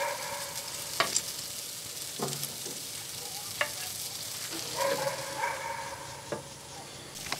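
Bacon-wrapped doves sizzling quietly on a hot grill grate, with several sharp clicks as steel tongs knock against the grate and a glass baking dish.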